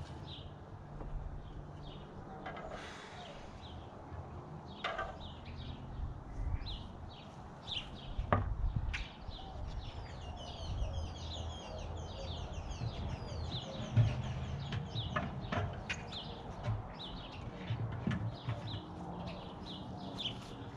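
Small birds chirping and calling, with a quick run of repeated falling notes in the middle, over a low steady hum. A few sharp knocks come from wooden hive frames being handled.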